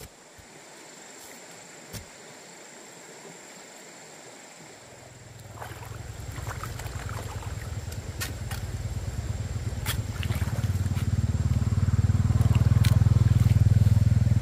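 An engine running with a fast low pulse, growing steadily louder from about five seconds in as if drawing near, with a few sharp clicks over it.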